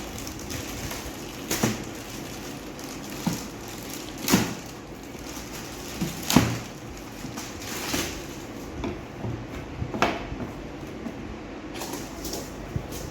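A series of separate knocks and clunks, roughly one every second or two, the loudest about four and six seconds in, over a steady background hiss: things being handled and set down.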